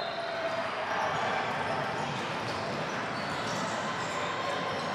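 A basketball bouncing on a hardwood gym court over a steady background of voices and crowd chatter.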